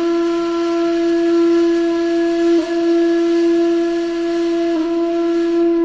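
A breathy, flute-like wind instrument holding one long steady note, with two brief dips in the tone about midway and near the end.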